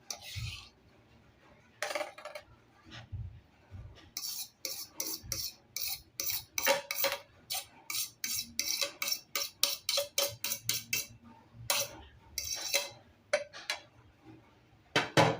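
Spoon stirring mashed banana into cake batter in a mixing bowl: repeated clacks and scrapes of the utensil against the bowl, about three a second through the middle stretch, with one louder knock near the end.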